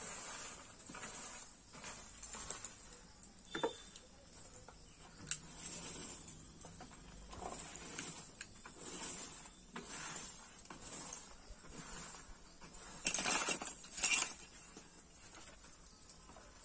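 Lumps of charcoal clinking and scraping as they are handled and packed into a kiln's firebox opening, in irregular clatters, with a louder run of scraping near the end.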